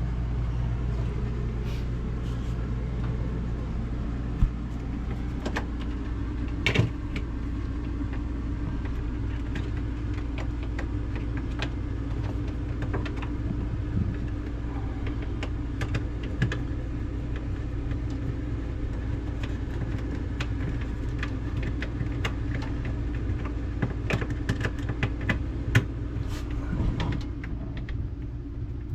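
Scattered light clicks and knocks of hand tools and fasteners being snugged into the refrigerator's plastic shelf supports, over a steady low mechanical hum.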